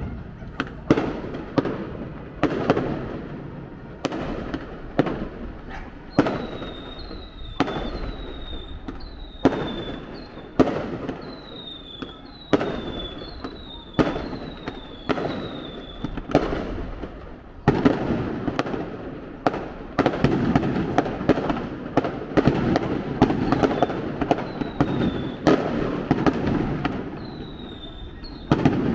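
Fireworks display: aerial shells bursting one after another at irregular intervals, each bang trailing into a rolling echo.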